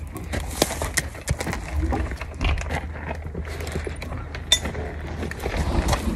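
Saddle tack being handled at a horse's side: rustling and many small sharp clicks and clinks as the saddle and girth fittings are worked, over a steady low rumble.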